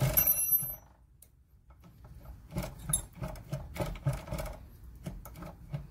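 A metallic clink with a brief high ringing, then a run of light, irregular clicks and taps from handling tools and copper tubing at a refrigerator compressor.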